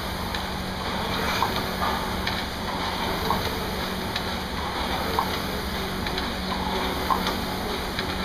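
Air-flywheel indoor rowing machine being rowed hard: a steady whoosh of air from the spinning flywheel, with a short clack once per stroke, about every two seconds.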